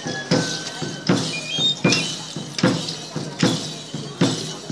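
Traditional Andean Yumbada dance music: a high flute playing a short stepping melody over a drum struck steadily, about one beat every three-quarters of a second.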